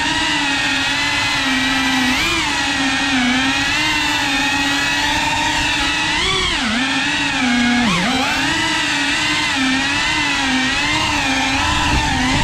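Cinewhoop FPV drone's motors and ducted propellers whining in flight, the pitch wavering up and down with the throttle. The pitch dips sharply twice, at about 7 and 8 seconds in.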